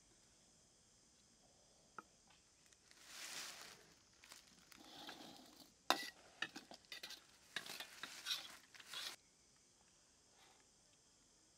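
A metal ladle stirring and scraping in a steel wok of pork and vegetables, with sizzling. Two soft swells of stirring come first, then a quick run of scrapes and clinks that stops about nine seconds in.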